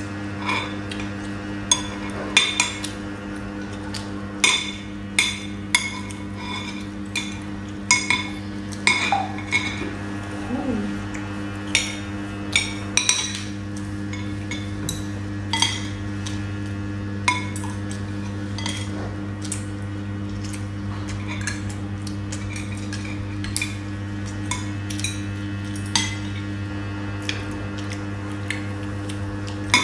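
Metal spoons and forks clinking and scraping against ceramic rice bowls and plates as two people eat, in irregular sharp clinks that come thickest in the first half. A steady low hum runs underneath.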